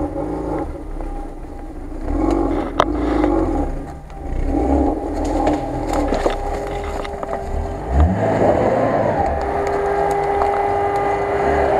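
Lada Niva 4x4's four-cylinder petrol engine running close by as the car crawls through forest undergrowth on soft ground, its pitch rising and falling as the throttle is worked, with a rev-up about eight seconds in.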